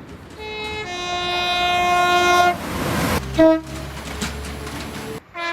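Train horn sounding a long blast of about two seconds, followed by the rush of the passing train and a short, louder toot about three seconds in. The train's rumble cuts off suddenly near the end and another horn note begins.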